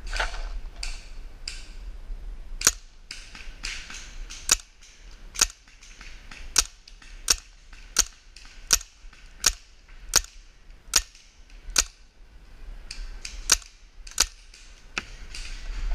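Paintball marker firing a steady run of single shots, a little under one a second, starting a few seconds in and stopping near the end, with fainter pops in between.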